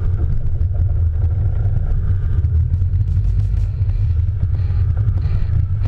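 Sportfishing boat's engines running with a loud, steady low rumble, with water churning in the wake behind the stern.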